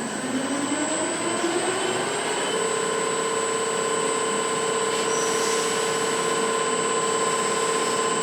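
Grinding wheel of an ingot grinding machine spinning up: a whine rises in pitch over the first two or three seconds, then holds steady at full speed over a steady rushing noise.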